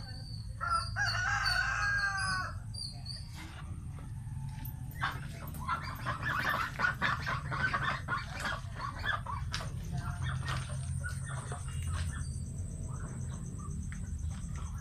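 A rooster crows once, about half a second in, for about two seconds. From about five seconds a dense run of clucking and calls from the fowl follows, then scattered calls, over a steady low rumble.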